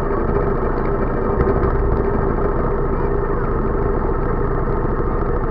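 Go-kart engine idling steadily, heard up close from a camera mounted on the kart.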